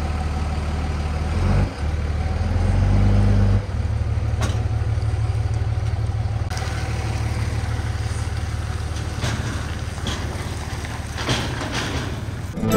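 Pickup truck engine idling steadily. It runs louder and a little higher for about two seconds near the start, and a few short knocks sound over it.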